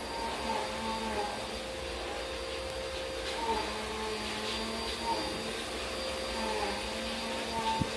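A steady machine hum with a few faint held tones, and a soft thump near the end.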